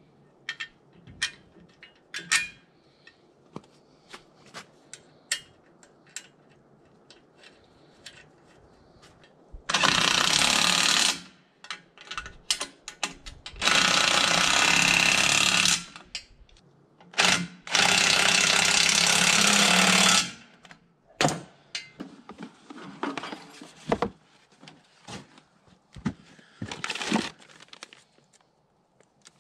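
A power tool running in three bursts of about two seconds each, with a short blip between the last two. Light clicks and taps of metal parts being handled come before and after the bursts.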